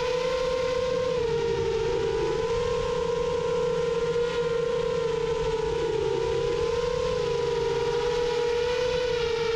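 7-inch folding FPV quadcopter's motors and propellers whining steadily in flight, the pitch dipping and rising slightly with throttle.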